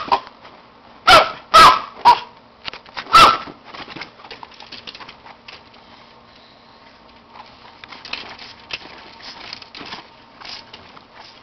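A dog barking in agitation, freaking out: three loud, sharp barks in the first few seconds, then fainter, scattered short sounds.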